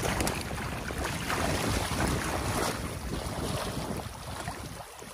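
Water rushing and splashing through a breach in a beaver dam, churned by wading boots and a long-handled tool pulling at the dam debris. It eases off about four seconds in.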